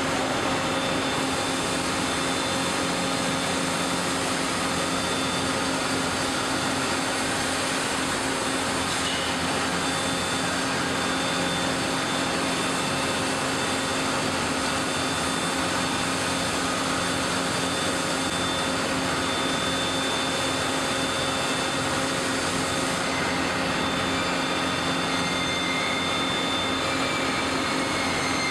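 Steady industrial machine drone with a constant hum from a hot-coiling spring machine turning its mandrel as it winds a red-hot steel bar into a coil spring.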